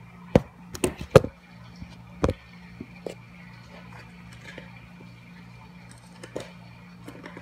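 Handling noise: several sharp knocks and clicks of objects being picked up and set down, mostly in the first two and a half seconds, then a few faint taps, over a steady low hum.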